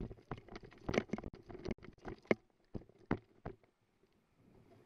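Irregular knocks and thumps, about ten in the first three and a half seconds, stopping near the end: a lacrosse player's footfalls and gear jostling against the camera as he runs on turf.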